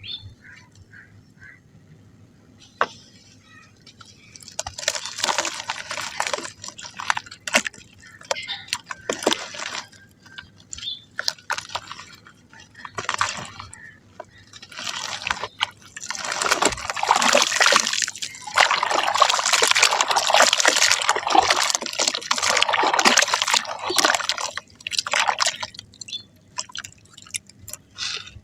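Soft mud crumbling in water: wet crackling and sloshing in bursts that start a few seconds in, run almost without a break through the second half, and stop shortly before the end.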